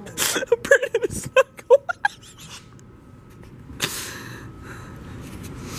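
Short breathy vocal sounds from a person for about two seconds, then a sudden rustle just before four seconds in and a low steady noise that slowly grows louder.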